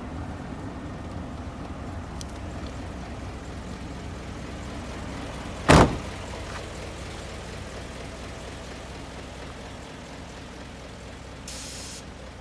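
Isuzu Giga truck's diesel engine idling steadily. A cab door slams shut once about halfway through, and a brief hiss comes near the end.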